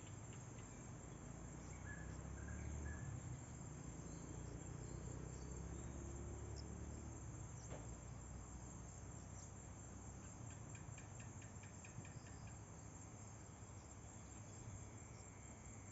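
A steady, high-pitched chorus of chirping insects over a faint low rumble. About ten seconds in, a brief rapid series of ticks sounds.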